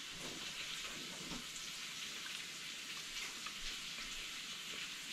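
Steady sizzle of kohlrabi searing in a frying pan on high heat, with faint sounds of a bite into a toasted sandwich and chewing in the first second or so.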